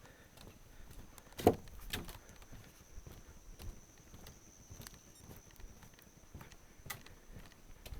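Footsteps of a person walking, an irregular patter with a sharper thump about a second and a half in and a few more later.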